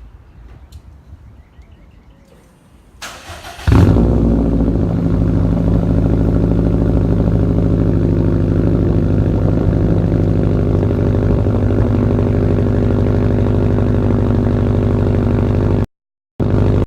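2018 Subaru WRX STI's turbocharged 2.5-litre flat-four started through an ETS Extreme catback exhaust with no mufflers or resonator: the starter cranks briefly about three seconds in, the engine catches loudly and settles into a steady idle. The sound drops out for a moment near the end.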